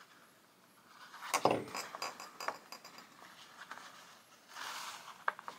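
Hands tying off the sewing thread on a hand-sewn notebook: faint handling sounds, with a soft thump about a second and a half in, a few small clicks after it, and a short rustle near the end.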